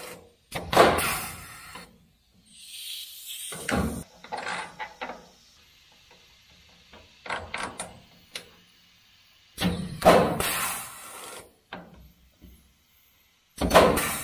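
Huck bolt tool setting huck bolts: four loud mechanical cycles, each lasting a second or two, as the tool pulls the bolt and crimps its collar, with small clicks of handling between them.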